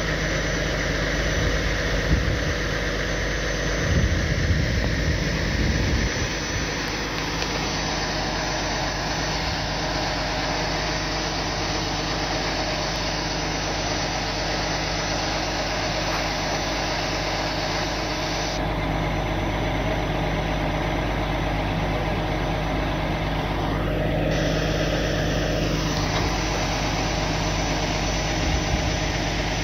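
Heavy-duty tow truck's diesel engine idling steadily, with a brief low rumble about four seconds in.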